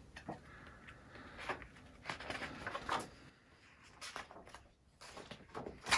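Paper pages of a softcover picture book being opened and turned by hand: several faint, short rustles and soft handling knocks, with a brief pause a little past the middle.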